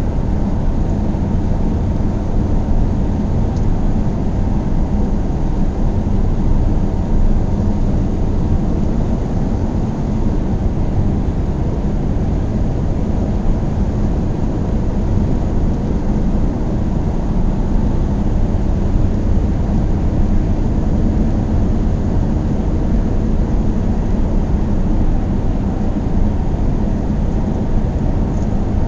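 A car driving at a steady speed: a constant low rumble of engine and road noise that holds even throughout.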